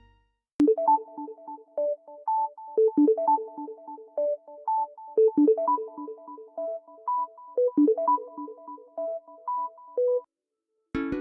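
A Samsung Galaxy S20 stock ringtone: a synthesized melody of short, bright notes in a brisk, repeating pattern, lasting about nine and a half seconds. Just before the end, the next ringtone starts.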